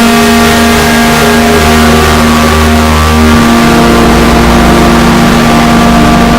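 Wind band holding sustained chords, amplified so far that it is clipped into harsh, noisy distortion. The low chord shifts about three and a half seconds in.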